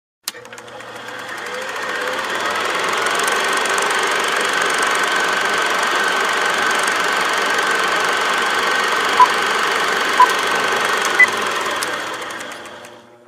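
Film projector running: a steady mechanical whirring and clatter that fades in after a click and fades out near the end, with three short beeps about a second apart, the last one higher.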